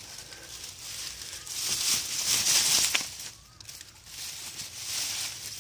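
Dry grass and dead leaves rustling and crackling as they are brushed and pushed aside, loudest about two seconds in and again near the end, with a few sharp crackles.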